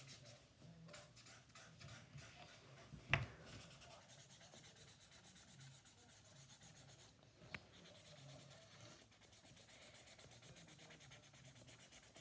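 Faint felt-tip marker strokes rubbing on paper, a quick steady scratching of colouring in. A sharp knock comes about three seconds in, and a smaller click a few seconds later.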